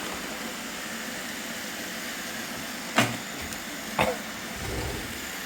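Roomba robot vacuums running with a steady whir, and two sharp knocks about a second apart, three and four seconds in: robot vacuums bumping into something.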